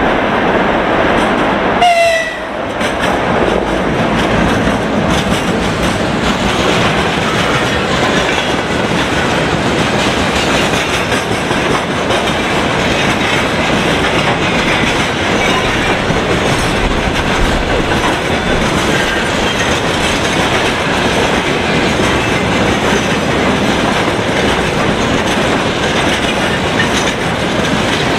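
2ES6 Sinara electric locomotive giving a short horn blast about two seconds in as it passes, its pitch dropping slightly. A long train of rail tank cars then rolls steadily past, wheels clattering over the rail joints.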